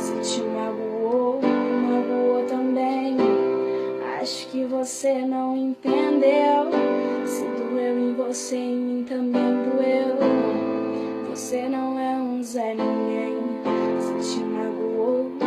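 Instrumental background music: sustained keyboard chords that change every second or two, with short high hiss-like hits now and then.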